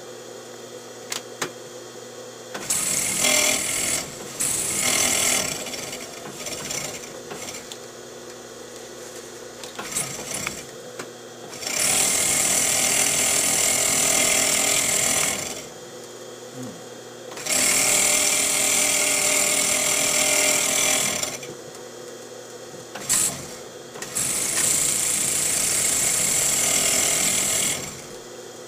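Electric bell-knife leather skiving machine running with a steady motor hum; four times, for about three to four seconds each, it grows much louder as the edge of a leather piece is fed past the rotating blade and skived thin.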